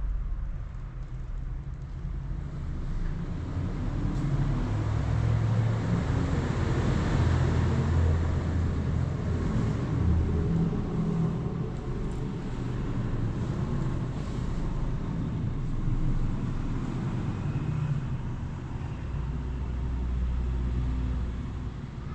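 Passing road traffic: a low vehicle rumble and road noise that swell over several seconds in the middle and again near the end.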